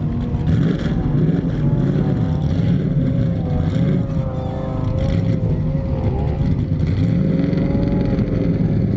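Off-road 4x4 engine running hard under load in sand, its pitch rising and falling as the throttle is worked.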